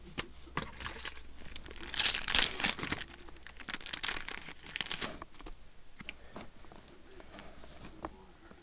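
Foil booster-pack wrapper crinkling and tearing as a pack of trading cards is opened, loudest in two bursts about two and four seconds in, with light clicks of cards being handled.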